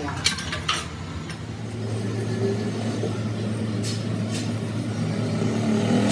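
A machine starts a steady, low hum about a second and a half in. A few sharp metallic clicks come in the first second and again around four seconds.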